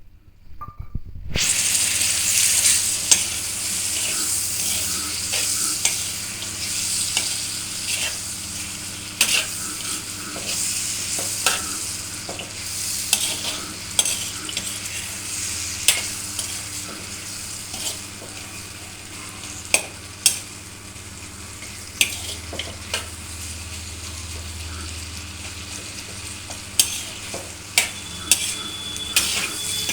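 Food frying and sizzling in a hot pan, starting suddenly about a second and a half in, loudest at first and then settling. A spatula clicks and scrapes against the pan again and again as the food is stirred.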